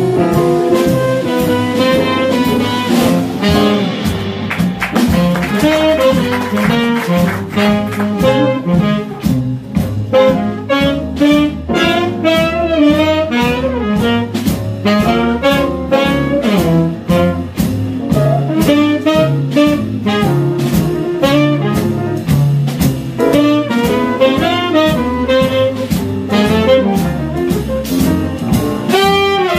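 Small swing band playing a jazz tune: muted trumpet and tenor saxophone playing the melody together over a rhythm section of archtop guitar, piano, double bass and drums, with a steady beat.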